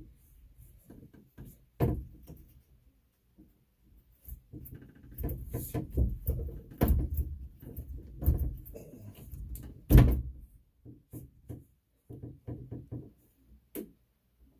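Irregular knocks, clunks and rattles of hand work on plumbing parts and tools, with two sharp thumps about two seconds in and about ten seconds in, the second the loudest.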